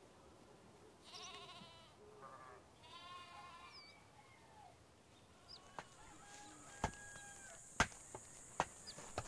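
A goat bleating twice, each call wavering and about a second long. Then sharp clicks and taps from a bamboo hoop being worked into the rim of a woven plastic sack, with a steady high insect drone coming in about halfway.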